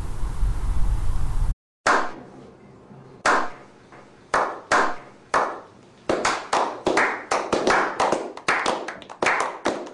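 A low steady rumble cuts off after about a second and a half. Then a small group starts a slow clap: single claps a second or more apart, speeding up after about six seconds into quicker applause of three or four claps a second.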